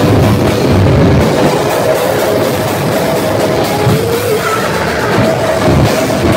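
Heavy metal band playing live at full volume, with a pounding drum kit and distorted electric guitars.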